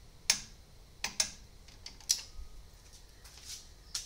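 A few sharp, separate metal clicks from a wrench on the engine torque strut bolts, one about every second, with two in quick succession early on: the bolts being tightened to their torque spec.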